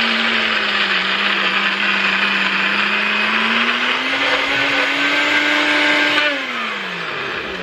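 NutriBullet personal blender running, grinding dry Flamin' Hot Cheetos into crumbs with a steady motor hum and gritty whirring. Its pitch rises slightly about halfway through, then the motor winds down with a falling pitch near the end.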